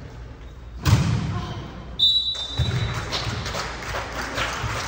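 Ball thuds in a gym: one loud hit about a second in and another just after the middle. A brief high-pitched squeal sounds about two seconds in, with players' and spectators' voices behind.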